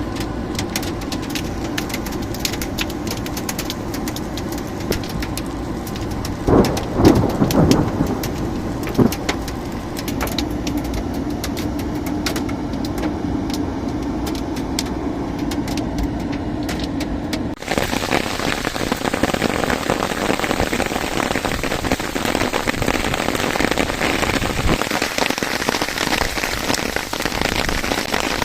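Rain falling hard, with many sharp drop impacts pattering close by, and a brief louder rumble about seven seconds in. About two-thirds of the way through it switches abruptly to a denser, steady hiss of heavy rain.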